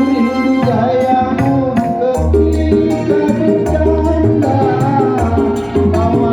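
Music with a steady percussive beat, a bass line and pitched melody notes.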